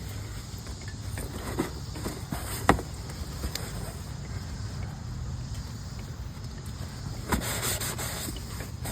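Hand tools being handled and put away: a few knocks and one sharp clink about two-thirds of the way through the first third, then rustling near the end, over a steady low rumble.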